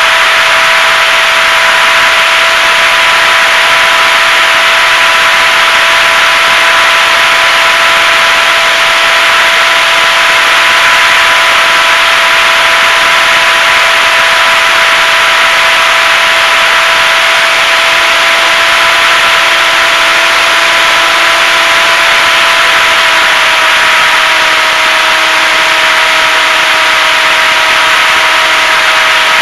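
The electric motor and propeller of a HobbyZone Super Cub RC plane run at steady cruise throttle: a steady whine over loud rushing airflow, picked up by the onboard camera. The pitch drops slightly about 23 seconds in.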